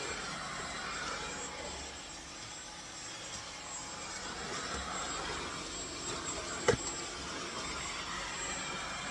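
Dyson V15 cordless stick vacuum running steadily as its light-up floor head is pushed over the floor. A single sharp click about two-thirds of the way through.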